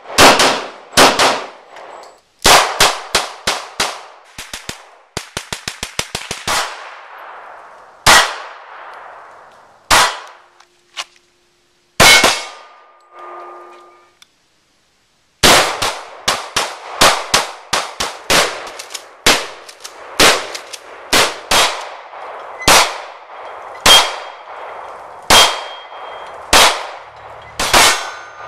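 Handgun gunfire: many sharp pistol shots, each with a ringing echo tail, including a rapid string of about ten shots around five to six seconds in. After a brief silence a little past halfway, the shooting resumes as a steady run of single and paired shots.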